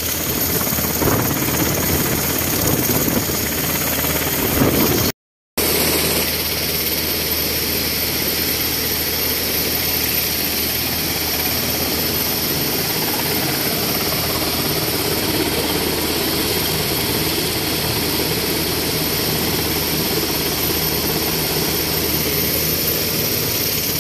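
Black Hawk helicopter running on the ground, a steady loud rotor and turbine noise. The sound cuts out briefly about five seconds in.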